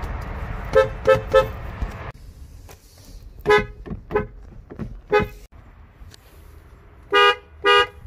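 Car horns honking in a string of short clips. Three quick toots come about a second in, then several scattered honks, then two longer honks near the end. Each clip cuts off abruptly into the next.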